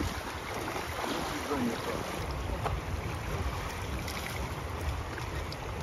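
Fast-flowing river water rushing steadily, with wind rumbling on the microphone.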